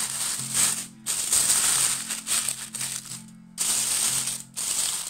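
Aluminium foil crinkling and crackling as hands fold and crimp it shut into a parcel, in stretches with short pauses. Background music with a slow low melody plays underneath.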